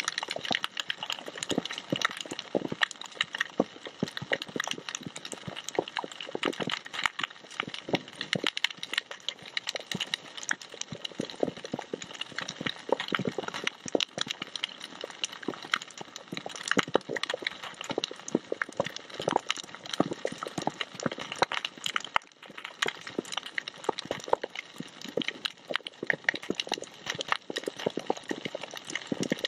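Coral reef heard underwater: a dense, continuous crackle of countless short, sharp clicks from snapping shrimp.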